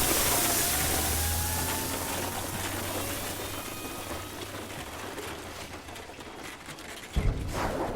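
Designed sci-fi spacecraft sound effect: a dense rushing noise over a steady low hum, slowly fading, with faint rising whine tones. A sudden hit breaks in about seven seconds in.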